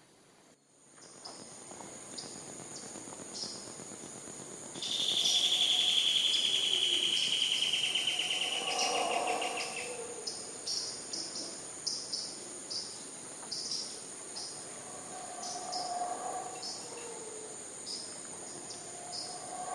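Tropical insect chorus: a steady high-pitched drone with short chirps repeating irregularly, and a loud buzzing insect call that slides slowly down in pitch for about five seconds, starting a few seconds in.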